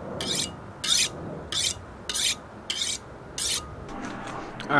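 A knife blade drawn along a steel honing rod: about six quick, sharp metallic scrapes, one every half second or so, stopping about three and a half seconds in.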